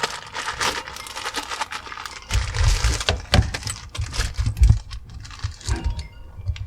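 Steering wheel and its mounting bolts being handled and lined up on the quick-release hub: small metal parts clinking and rattling among rustling and light clicks, with dull handling knocks from about two and a half seconds in.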